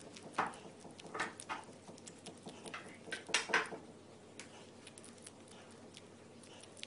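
Serotine bat chewing its food with its mouth open: irregular clicks and smacks, busiest in the first few seconds, then fewer and fainter.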